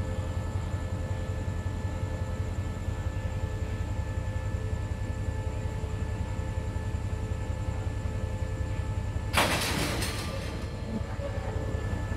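Diesel locomotive idling with a steady low throb and a constant hum. About nine seconds in, a sudden burst of hissing noise cuts in and dies away within about a second.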